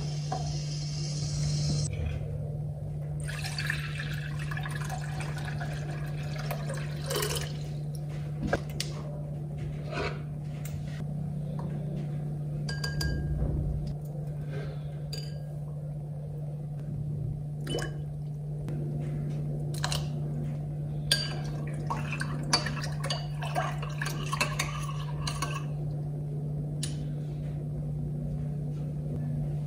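Liquid pouring and sloshing in a container, with scattered clinks and taps of kitchen utensils, over a steady low hum.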